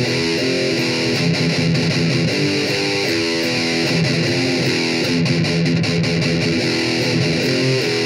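Electric guitar being played: a picked riff of quickly changing notes at a steady loud level.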